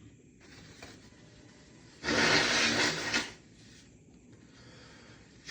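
A faint rustle, then a person blowing their nose hard once, about two seconds in and lasting just over a second, clearing a nose stuffed up by an allergy flare-up. A second blow starts at the very end.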